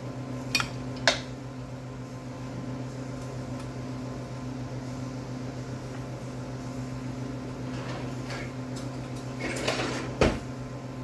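Utensil and pot sounds: two sharp metal clinks about half a second and a second in, then a scrape ending in a knock near the end, over a steady low appliance hum.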